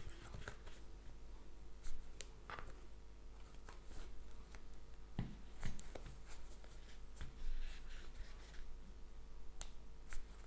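Crochet hook and thick t-shirt yarn being worked by hand: scattered small clicks and soft rubbing and rustling of the yarn.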